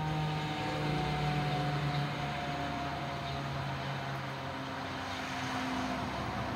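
Motor-driven civil-defence siren winding down after its test signal: the rotor coasts and its low hum slowly sinks in pitch, over a haze of traffic noise.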